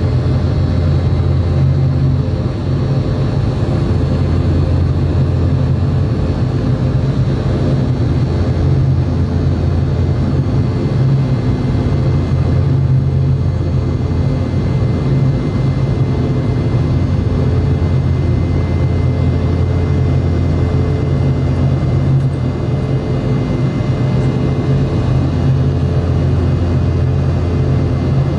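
Steady engine drone of a Boeing 717-200's rear-mounted BMW Rolls-Royce BR715 turbofans heard inside the passenger cabin, a loud low hum with faint high fan whines, holding constant.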